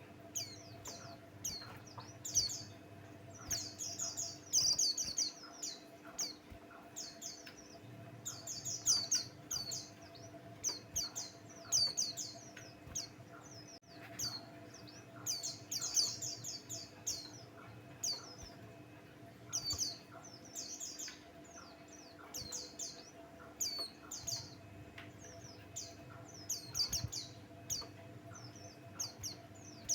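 A white-eye (pleci Buxtoni) singing vigorously: rapid runs of high, twittering chirps in bursts of a second or two, one after another with short gaps. A faint steady low hum lies underneath.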